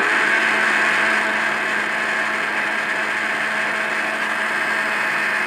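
Electric countertop blender running steadily at speed, grinding mango pieces with milk and sugar into a thick mango juice: a loud, even motor whir with a steady low hum underneath.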